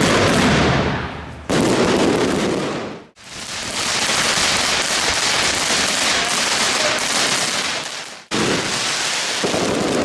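Fireworks going off, a dense hiss and crackle of fountains and aerial bursts, in several clips joined by abrupt cuts about one and a half, three and eight seconds in.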